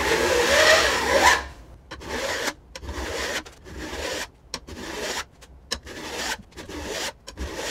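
Flat file scraping along the steel tooth line of a back saw clamped in a saw vise: the saw is being jointed, the teeth filed down level to take off the old rip-cut teeth. One long stroke comes first, then a run of shorter, quicker strokes, about one and a half a second.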